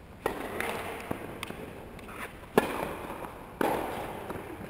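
Tennis balls struck by racquets in a doubles rally: three sharp pops, about a quarter second in, then at about two and a half and three and a half seconds, each ringing on briefly, with softer taps of bounces or footsteps between.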